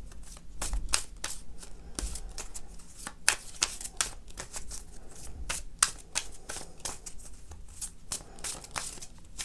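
A deck of tarot cards being shuffled by hand: a run of quick, irregular clicks as the cards slap and slide against each other.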